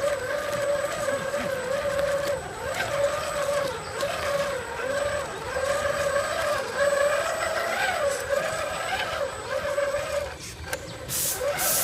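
Electric drive motor and gears of a scale RC crawler truck whining, a steady tone that wavers up and down in pitch as the throttle is worked during a slow crawl. About ten and a half seconds in the whine stops, and a short burst of hiss follows near the end.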